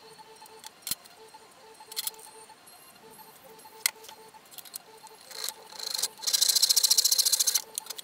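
Hand tools being handled on a wooden stool: a few light knocks and clicks, then a louder, rapid scraping rasp lasting about a second and a half near the end.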